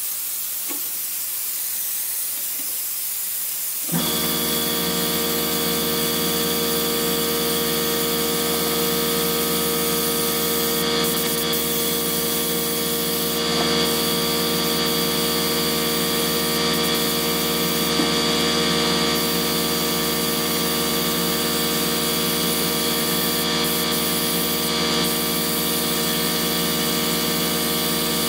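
Compressed-air spray gun hissing as it sprays bed liner. About four seconds in, an air compressor starts suddenly and runs with a steady hum, with short bursts of spray hiss over it.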